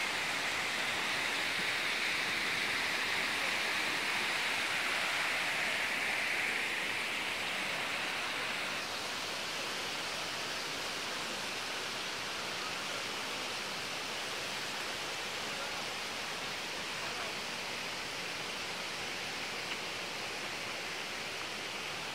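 Water rushing in a shallow cascade down sloping rock slabs of a forest stream: a steady hiss. It is a little louder and brighter for the first several seconds and slightly softer after about eight seconds.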